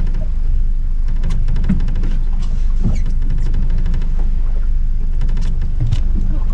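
Wind buffeting an exposed camera microphone: a loud, steady low rumble with scattered crackles.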